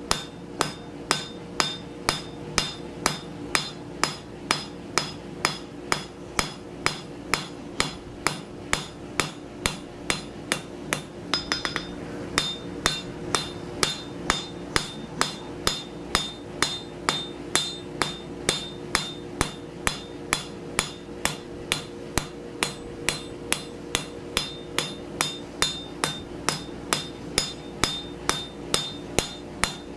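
Hand hammer striking red-hot steel on an anvil at a steady pace of about two blows a second, the anvil ringing briefly after each blow: the end of a scroll being forged down into a bevel.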